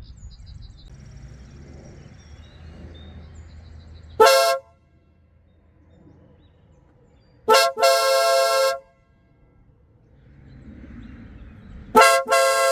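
Marco Tornado electric air horns, sounding together with the car's stock horns, blown three times. A short toot comes about four seconds in. Two longer blasts follow, each opened by a quick blip, around eight seconds in and near the end.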